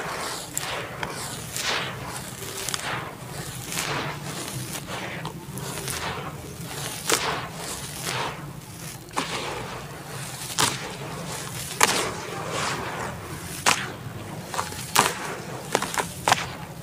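Hands crumbling dry red dirt into wet clay paste and pressing it down: gritty crunching with sharp crackles every second or two.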